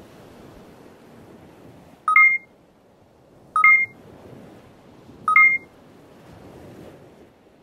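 Three short electronic beeps from a sensor display, about a second and a half apart, each a two-tone bleep, over a steady rushing hiss.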